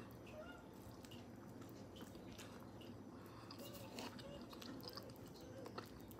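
Faint chewing of santol fruit flesh: soft wet mouth sounds with a few small clicks.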